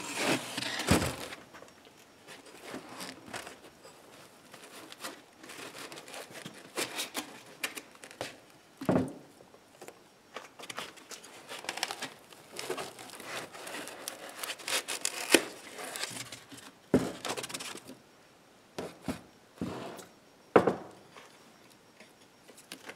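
Unpacking noise: foam packing end caps and plastic wrapping rubbing, crinkling and being pulled off a boxed electronics unit, in irregular rustles and scrapes. Several sharp knocks come in between as the unit and foam pieces are handled and set down on the bench.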